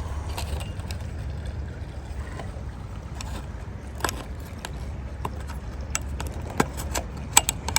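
Scattered sharp plastic clicks and clacks as a retrieval hook is fitted onto the end of a pool pole, more frequent and louder toward the end, over a steady low rumble.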